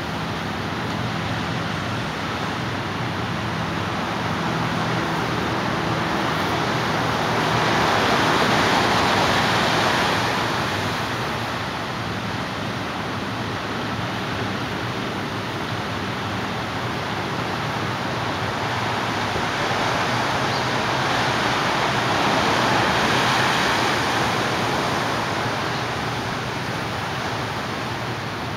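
Ocean surf breaking and washing up onto a sandy beach: a continuous rush that swells louder twice, about a third of the way in and again near three quarters of the way through.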